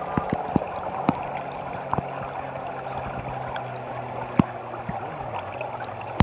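River water lapping and gurgling right at the microphone, with scattered small splashes and drips and a faint low steady hum underneath.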